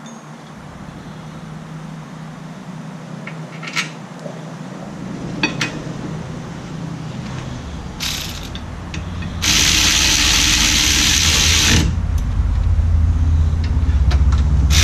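A pneumatic ratchet runs in one loud burst of about two seconds, tightening a fastener, after a few sharp metal clicks of tools being handled. A low hum builds near the end.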